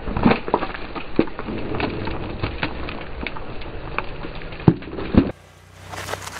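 Car tyre rolling over large hollow plastic lollipop toys filled with small lollipops. The plastic shells and hard candy crack and snap under the weight in a rapid series of sharp cracks, with the loudest snaps near the start and just before the sound cuts off abruptly about five seconds in.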